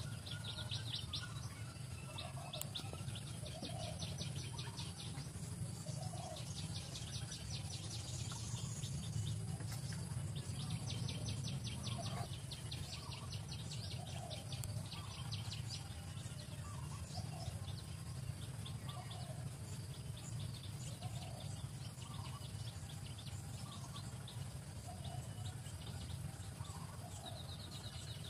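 Outdoor birdsong: bursts of rapid high trills and short lower chirps repeating every second or two, over a steady low hum.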